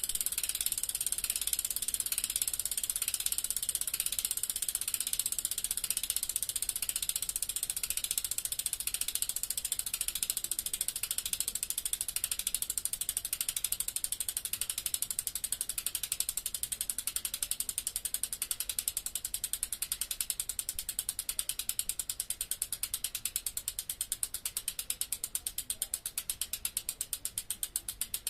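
Bicycle rear freewheel ticking as the wheel spins freely: a fast, even ratchet clicking of the hub pawls that gradually slows toward the end as the wheel loses speed.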